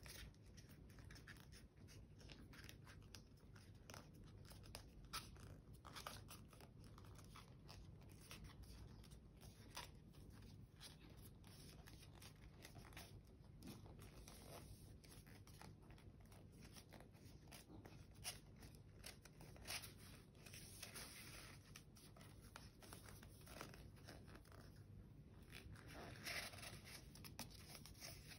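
Faint rustling and crinkling of a sheet of paper being rolled and folded by hand, with scattered soft clicks and a few slightly louder crinkles, more of them near the end.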